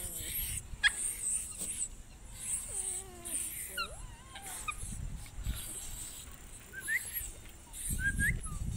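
Puppies play-fighting, giving a few short wavering whimpers and high squeaky whines, with scuffling in the dirt.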